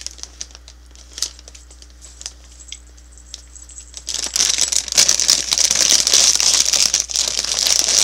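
Plastic snack bag of cheese curls crinkling as it is pulled open: a few scattered crackles at first, then loud, continuous crinkling from about four seconds in.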